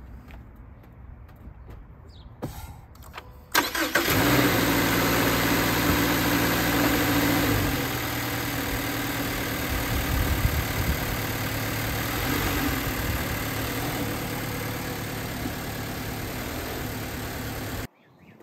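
2018 Subaru Impreza's 2.0-litre flat-four boxer engine starting about three and a half seconds in and settling into a steady idle. The idle eases a little lower about eight seconds in, and the sound cuts off suddenly near the end. The engine is being run after an oil change to circulate the fresh oil.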